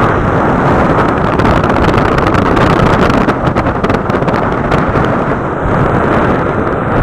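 Strong gusty wind buffeting the microphone: a loud, continuous low rumble with crackling gusts around the middle, over the noise of rough sea waves.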